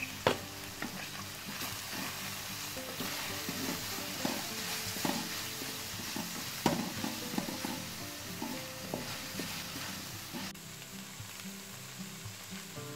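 Minced meat sizzling as it fries in an aluminium pan, stirred and scraped with a wooden spoon, with sharp knocks of the spoon against the pan, loudest about a third of a second in and near the middle. The stirring stops about ten seconds in and the frying carries on.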